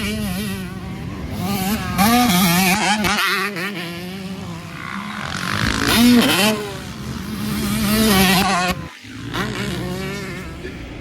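Yamaha YZ125 two-stroke dirt bike engine revving hard, its pitch rising and falling again and again with the throttle. It drops out briefly about nine seconds in, then picks up again.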